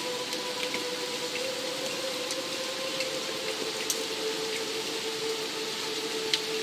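Steady rain hiss with scattered sharp drips, under a held ambient music note that steps slightly lower about three seconds in.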